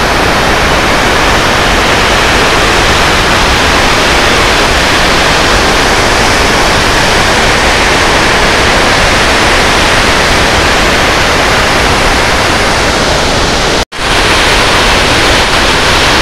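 A full reservoir overflowing its dam's curved concrete spillway: a loud, steady rush of falling water crashing onto the rocks below. It breaks off for a split second near the end, then carries on.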